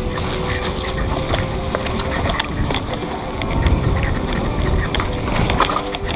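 Wind buffeting the microphone of a camera on a moving trail ride, a dense low rumble with scattered sharp rattling clicks.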